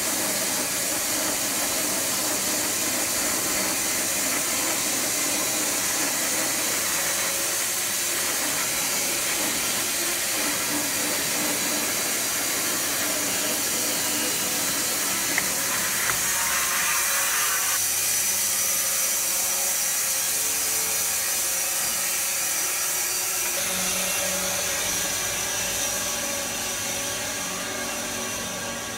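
Homemade electric bandsaw mill sawing through an elm log: a steady hiss of the blade cutting, with a low motor hum underneath. About three-quarters of the way through, the hiss drops off and a lower hum takes over.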